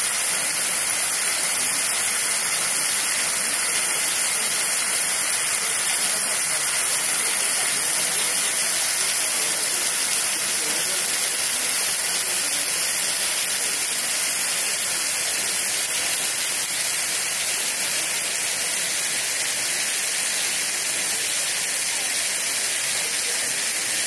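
Waterfall pouring onto rocks and into a pool, heard from close beside the falling water: a steady, even rush of splashing water.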